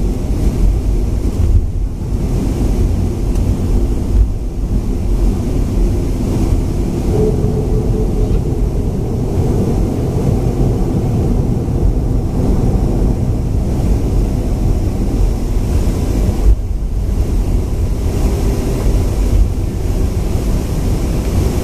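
Cabin noise inside a Boeing 737-500 taxiing: a steady low rumble from its CFM56-3 turbofan engines at idle together with the cabin air flow.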